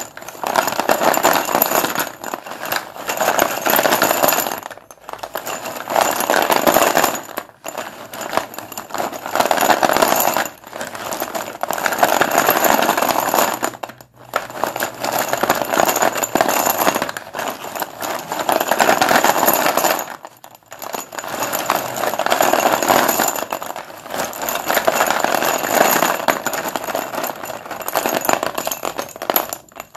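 White dustless chalk being crumbled and broken: a dense, crunchy crackling that comes in stretches of a few seconds, split by short breaks.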